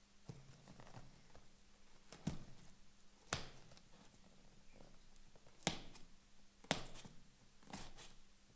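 Hands working open a cardboard shipping box: about five short, sharp rips and clicks of cardboard and packing tape, spread a second or so apart, over a faint steady hum.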